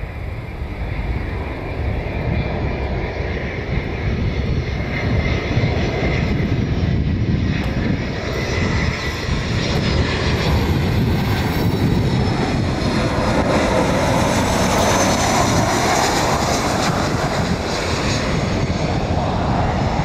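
Boeing 737-500's twin CFM56-3 turbofan engines on landing approach: a steady jet rumble with a whine, growing louder over the first half as the airliner closes in, then holding loud as it passes low overhead.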